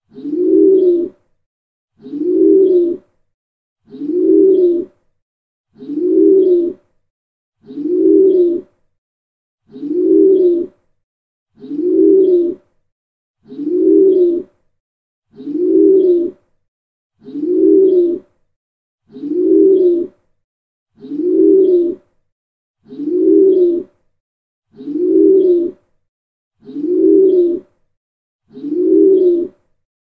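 Pigeon cooing: one low coo about a second long, repeated evenly about every two seconds and identical each time.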